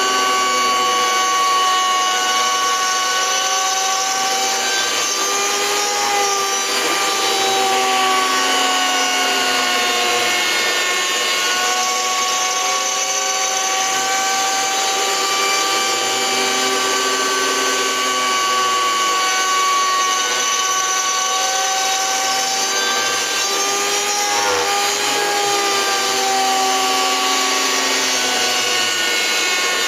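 A cheap mini grinder (rotary tool) serving as the spindle of a homemade CNC mill whines steadily while milling a circular pocket in wood. Its pitch sags slightly and recovers every few seconds as the cutting load changes.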